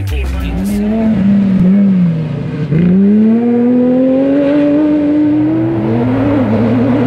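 Off-road race car engine revving hard in mud, its revs rising and falling. After a sharp dip, the revs climb steadily for about three seconds, then waver again. A music track cuts off right at the start.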